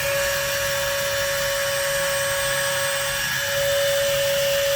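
Electric hydraulic car jack's motor-driven pump running with a steady whine, lowering the vehicle; it gets a little louder past the middle.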